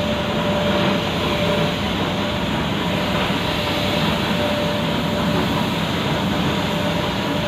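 Steady rush of compressed air from a gravity-feed spray gun spraying paint onto a car door, with a faint steady hum underneath.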